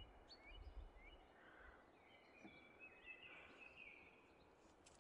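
Faint outdoor birdsong: a small bird repeating short rising chirps about twice a second, then a longer twittering phrase about two seconds in.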